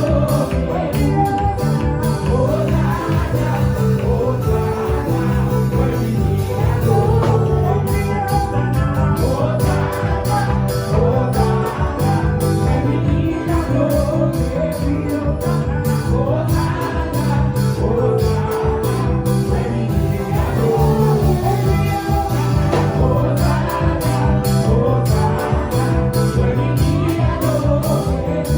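Live worship music: a lead singer and band playing a praise song with a steady beat, with tambourine and guitar in the mix.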